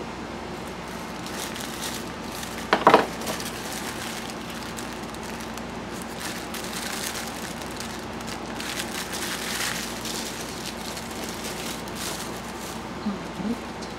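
Green wrapping paper rustling and crinkling in the hands as a plant is unwrapped, in several bouts. About three seconds in there is a brief, loud, pitched sound, and a steady low hum runs underneath.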